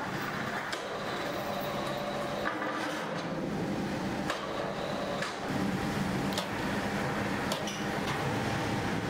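Rotational moulding machine running: a steel tank mould turning in its ring cage on rollers over gas burners, giving a steady mechanical rumble and hum with occasional clicks.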